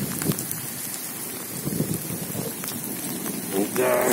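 Steady rain falling on waterlogged garden beds and puddles, with a brief hum-like sound near the end.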